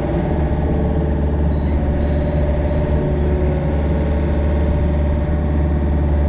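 Excavator's diesel engine running steadily at an even speed while it pulls dirt back from a leaking water line.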